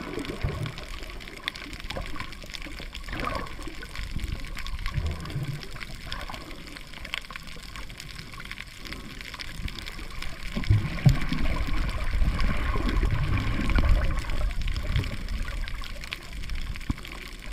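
Water moving around a camera held underwater: a muffled, low rumbling wash with scattered small clicks, growing louder about ten seconds in.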